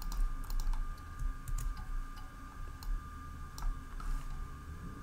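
Irregular clicks from a computer keyboard and mouse, roughly one or two a second, as shortcuts are pressed and objects selected. A faint steady hum runs underneath.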